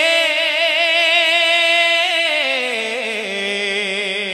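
A solo voice singing a devotional Urdu naat, holding one long note with vibrato that steps down in pitch about halfway through.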